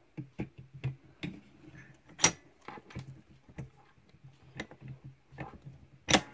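Irregular clicks and knocks of a new die being slid onto a badge-making machine and fitted into place, with about a dozen separate taps and a sharper knock about two seconds in and another near the end.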